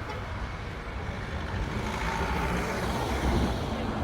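Steady road noise of a motor vehicle: a continuous low rumble with a hiss over it.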